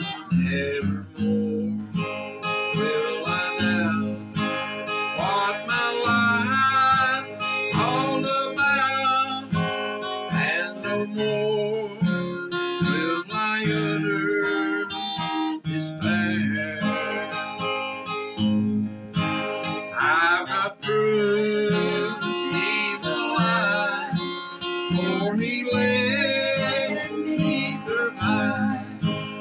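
Acoustic guitar playing an instrumental break in a gospel song: picked lead lines with sliding notes over steady strummed chords.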